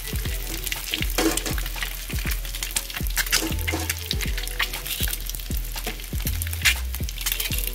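Boiled eggs frying in hot oil in a steel wok: a steady sizzle with irregular crackling pops of spitting oil. Background music with a bass line plays underneath.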